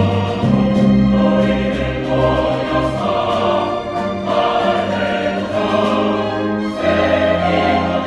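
Mixed choir singing with a string orchestra, in held chords that shift to new harmonies a few times.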